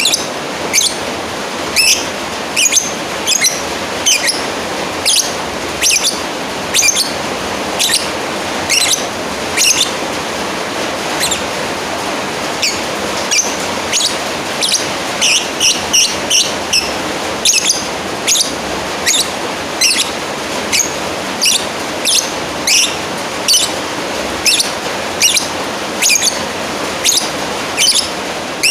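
Lovebird calling to a rival with a long run of short, shrill chirps, about one or two a second and sometimes in quick clusters, over a steady background hiss.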